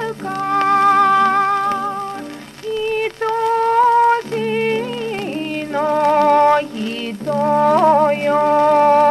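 Music from an old 78 rpm record of Showa-era Japanese popular music: a melody of long held notes with vibrato and short slides between them.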